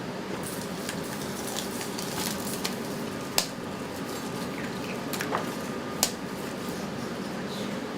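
Bento shop kitchen at work: a steady hiss and hum with sharp clinks and clicks of utensils and containers, the loudest two about three and a half and six seconds in.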